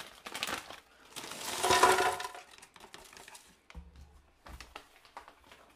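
Frozen strawberries and blueberries tipped into a plastic Ninja blender jar, clattering in one loud rush about a second in, followed by a few scattered clicks as the last pieces settle.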